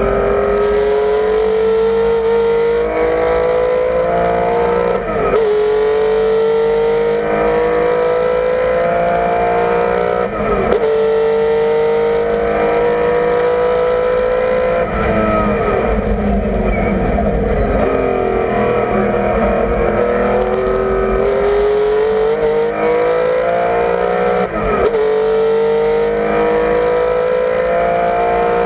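1976 Porsche 911 race car's air-cooled flat-six, heard from inside the cabin, pulling hard up through the revs on track. The pitch climbs steadily and drops sharply at each upshift, about four times, with a longer fall while slowing for a corner around the middle before it accelerates again.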